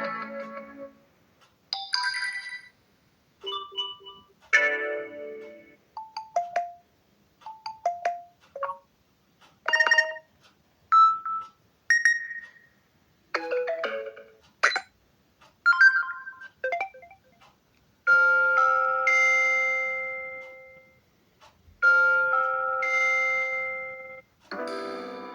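Samsung Galaxy M32 ringtones and alert tones played one after another: a string of short electronic chimes and jingles, each cut off after a second or less. Near the end, two longer chiming tones ring out and slowly fade.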